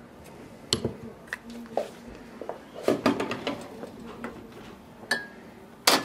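A portafilter being tamped and locked into the group head of an espresso machine: a string of separate metal clanks and clicks about a second apart, the loudest near the end, as glass shot glasses are set on the metal drip tray.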